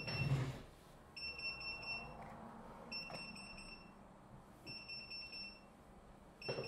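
Alphapoc 602R POCSAG pager beeping its message alert on receiving a DAPNET page: a high-pitched beep repeating about every two seconds.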